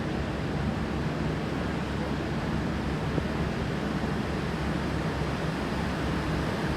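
Steady low rumble of a diesel railcar's engines running, with an even background hiss.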